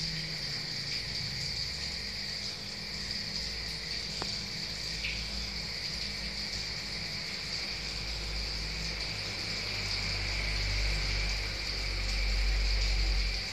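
Insects chirring steadily, with a low rumble underneath that grows louder over the last few seconds.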